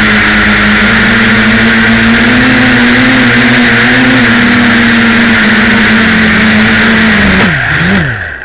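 FPV drone's motors and propellers running as a steady, loud buzz with a strong hiss. Near the end the pitch falls and wavers and the sound dies away as the drone comes down into the grass.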